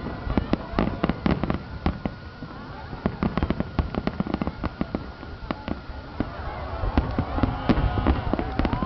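Fireworks display: a dense, continuous barrage of shell bursts, bangs and crackles in quick succession over a steady low rumble.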